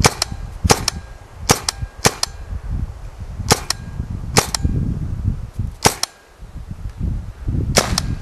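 RAP4 T68 magazine-fed paintball rifle, running on compressed air through a remote line, firing single shots: about ten sharp pops at an uneven pace.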